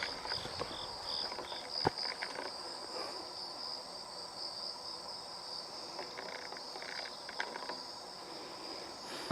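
Insects singing in a steady high-pitched drone, with a short run of evenly pulsed chirps in the first second and a half and a single sharp click about two seconds in.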